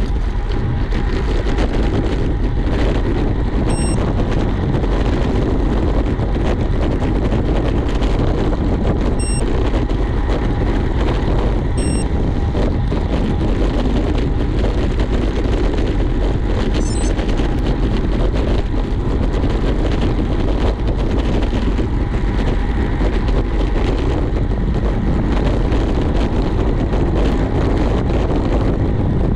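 Steady rushing wind on the microphone with road noise, from riding a road bike at speed.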